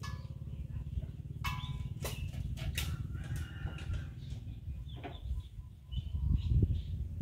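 A few short animal calls, bird-like, about one and a half to three seconds in, over a steady low rumble that swells louder near the end.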